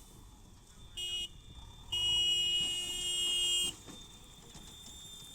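Vehicle horn sounding twice: a short toot about a second in, then a longer blast of nearly two seconds, over a low steady background rumble.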